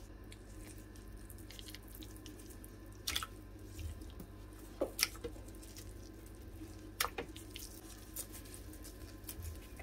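Pieces of pressed tofu torn by gloved hands and dropped into water in a blender jar: a handful of short, faint wet plops and drips over a steady low hum.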